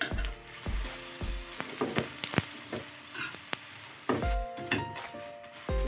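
Ghee sizzling and frying on a hot tawa under a paratha, with a few knocks and thumps as the paratha is handled and turned. Background music comes in about four seconds in.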